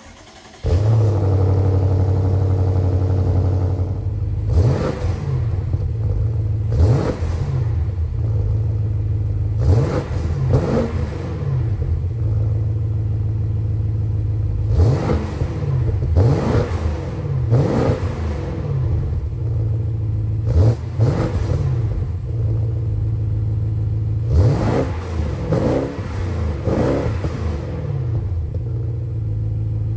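BMW M550i's 4.4-litre twin-turbo V8 catching about a second in and settling to a steady idle. It is then revved in repeated short throttle blips, each rising and falling in pitch, to check it runs properly after the engine bay wash.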